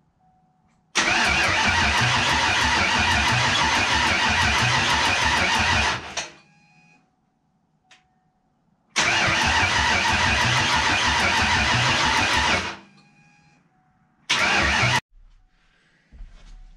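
Freshly rebuilt Ford 302 V8 in a 1989 Mustang GT being cranked on the starter in three tries, about five seconds, about four seconds and then a short blip, cutting off suddenly each time without settling into an idle. The owner blames the hard start on the distributor having moved during the install.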